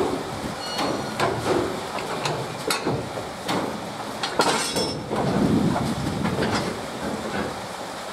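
VL10 electric locomotive easing up to a passenger coach and coupling with SA-3 automatic couplers: a run of metallic clanks and knocks, loudest about four and a half seconds in, with short high squeals.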